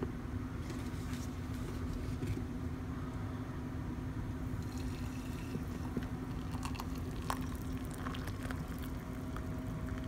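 Hot coffee poured from a French press into a mug, the pour starting about halfway through, over a steady low hum.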